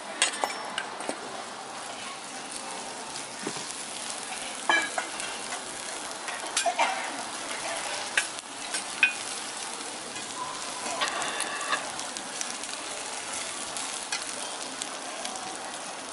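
Sliced cabbage and carrot sizzling in oil on a flat steel teppanyaki griddle, with a steady hiss. A metal spatula scrapes and clicks against the plate at irregular moments as the vegetables are stir-fried.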